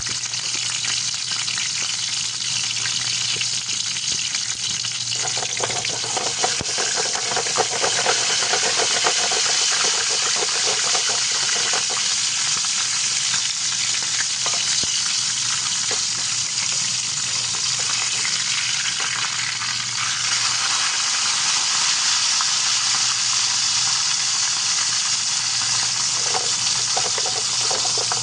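Bangus (milkfish) frying in hot oil: a steady sizzle with crackling and spattering, busier for several seconds about a fifth of the way in.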